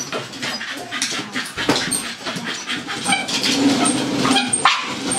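Dog whining and yipping in short calls while its paws beat a quick run of knocks on a dog treadmill.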